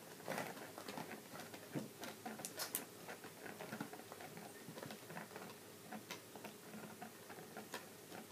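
Faint, irregular clicks and rustling of hands on a boxed Tinker Bell doll's plastic window packaging, pressing the doll's back to work its wing-flap mechanism.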